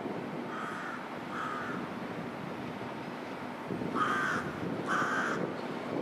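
A crow cawing four times, in two pairs: a fainter pair in the first two seconds, a louder pair about four and five seconds in. Underneath runs the low rumble of an approaching M62 diesel locomotive, which grows louder about four seconds in.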